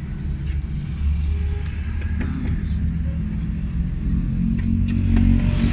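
A vehicle engine's low, steady rumble, getting a little louder near the end, with a few faint clicks over it.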